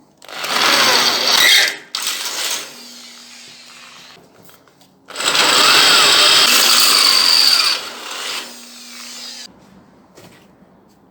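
A handheld power tool run in two bursts: a short one just after the start and a longer one of about two and a half seconds in the middle, with the motor's pitch sweeping up and down.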